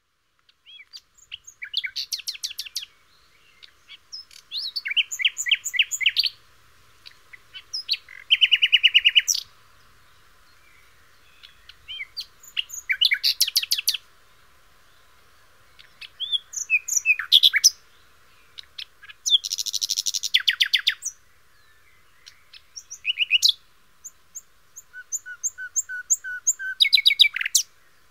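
Recorded bird songs and calls from a bird-sounds app, played one after another. They come as a string of short bursts of fast, repeated chirps and trills, varying from burst to burst, with brief pauses between. The sound is thin, with no low end.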